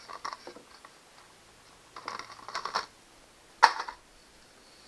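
Handling noise from the Stihl 029 chainsaw and its bar and chain: light clicks, then a rattling clatter about two seconds in, then one sharp knock a little later.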